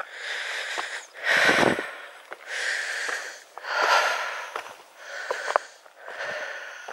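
A hiker's heavy, rhythmic breathing on a steep uphill climb, roughly one breath a second, with a few faint clicks of footsteps on loose stones.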